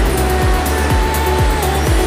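Background music with a steady electronic beat: a deep kick drum about twice a second under hi-hat ticks and held synth notes.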